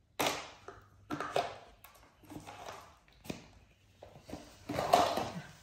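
Plastic baby-bottle parts being handled and fitted together: a string of about five taps, clicks and rustles, the loudest near the end.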